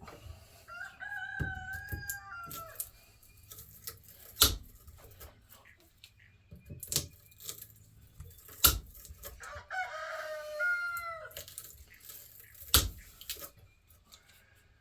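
A rooster crowing twice, each crow about two seconds long. Between the crows come several sharp snips of angle cutters cutting through the copper windings of a ceiling fan motor; three of the snips are the loudest sounds.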